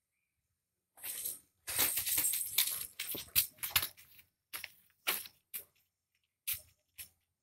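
Plastic tarpaulin strewn with straw crinkling and scraping under a puppy's paws as it scrabbles and rolls on it. A dense run of rustling starts about a second in, then thins to short, scattered crackles.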